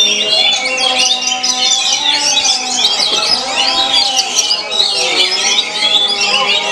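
Oriental magpie-robins (kacer) singing in competition: a dense, unbroken stream of rapid, varied whistles and chirps from several birds at once.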